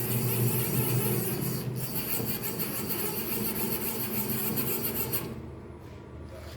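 Sliven CU310 CNC lathe running a cut: a steady scraping hiss over a low motor hum, stopping about five seconds in.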